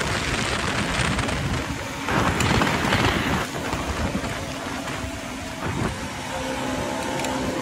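Wind rushing over the microphone on a moving motorcycle, with the bike's engine and other motorcycles running underneath. The rush swells about two to three seconds in.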